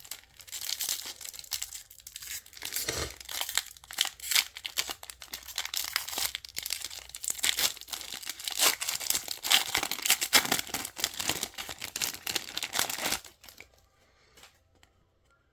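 Trading-card pack wrapper being torn open and crinkled: a dense, continuous crackling of thin plastic foil that stops suddenly near the end.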